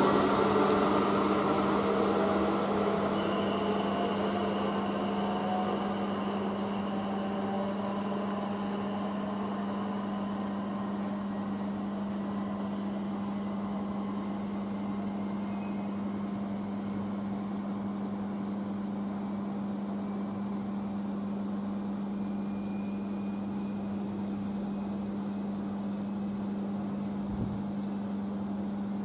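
South Western Railway Class 444 Desiro electric multiple unit pulling away, its traction motor whine and running noise fading over the first several seconds. A steady low hum continues throughout.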